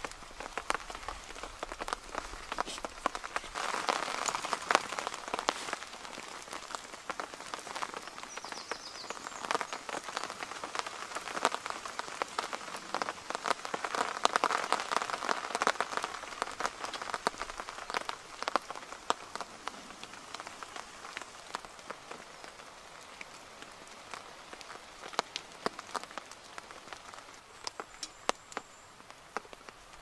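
Raindrops ticking irregularly on a tarp shelter, with the rustle and crinkle of a tarp being pulled and spread over it during the first half. Afterwards only the scattered drops remain.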